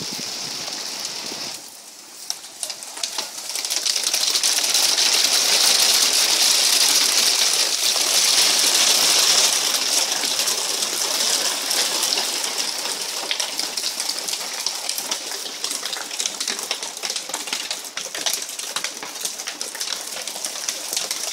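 Hailstones falling and pattering in a dense rush of small ticks. The hail grows heavy a few seconds in, then slowly eases.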